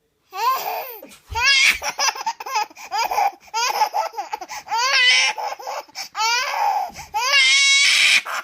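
Baby laughing hard in a long run of high-pitched squealing giggles, one burst after another.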